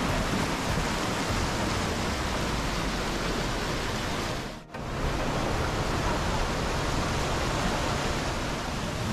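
Whitewater of a rocky mountain stream rushing over boulders below a waterfall, a steady, full rush of water. The sound briefly dips out about halfway through.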